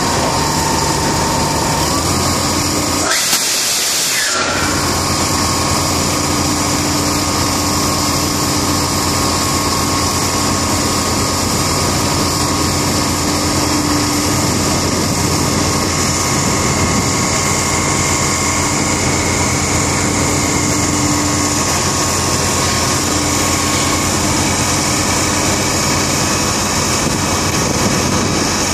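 Diesel engine and machinery of a Foremost Barber DR-12 dual rotary drill rig running steadily under load while it hoists a length of casing. A short loud hiss cuts in about three seconds in and lasts about a second and a half.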